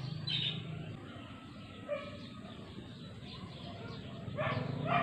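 Faint bird calls over low outdoor background noise, with a short chirp just after the start and a cluster of short rising calls near the end.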